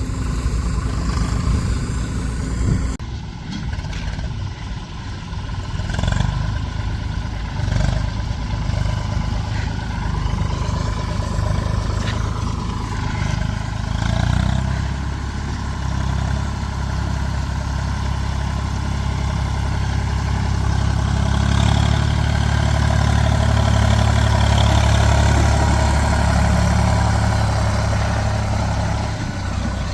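Diesel farm machinery engine running steadily, the sound changing abruptly about three seconds in and growing louder and heavier from about halfway through.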